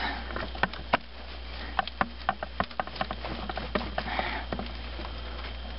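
Irregular clicks and light knocks of hands twisting and tugging a stuck coolant hose on an engine's water outlet; the hose is seized from years in place. A short breath about four seconds in.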